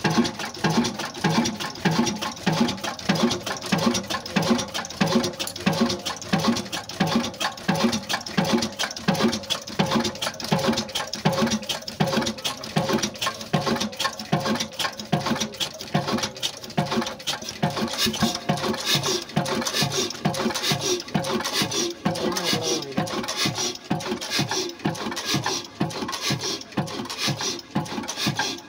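Old Ruston Hornsby 26 hp horizontal diesel engine running steadily, with a fast, even mechanical clatter.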